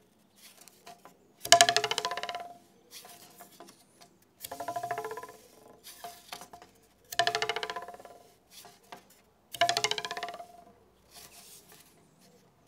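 A thin wooden stick pressed onto the edge of a wooden plank, plucked so it twangs and rattles against the board: four sharp strikes about two and a half seconds apart, each buzzing away over about a second, with softer taps between. This is a foley imitation of a knife or arrow sticking into a target.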